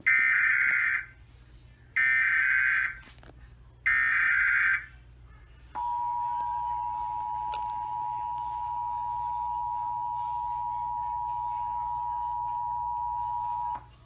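Emergency Alert System test heard through a TV speaker: three roughly one-second bursts of the SAME digital header, a rasping data screech, then the two-tone attention signal (853 and 960 Hz) held steady for about eight seconds before cutting off sharply.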